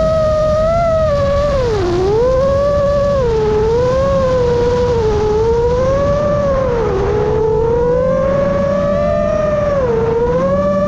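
FPV quadcopter's brushless motors and 7.5-inch propellers whining steadily, the pitch swooping down and back up several times as the throttle changes, over a low rumble of wind on the onboard microphone.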